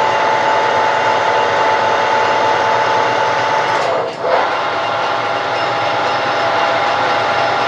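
Lathe running steadily with a constant whine, turning a plastic part; the sound drops briefly and jumps back about four seconds in.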